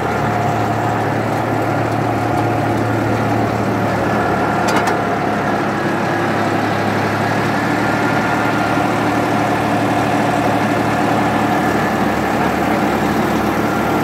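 Tractor diesel engine running steadily, powering a hydraulic auger hole digger, with a brief click about five seconds in.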